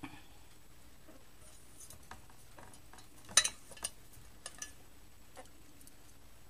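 Scattered light clicks, scrapes and clinks of an enamel saucepan on a kitchen scale as a baby red squirrel is put into it, its claws scrabbling on the enamel. The loudest is a sharp clink about three and a half seconds in.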